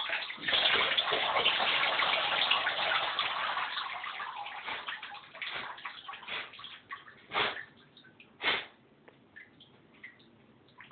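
Water pouring and splashing off a waterlogged Lego boat as it is lifted out of bathtub water, loud at first and tapering off over a few seconds, then two separate splashes about a second apart.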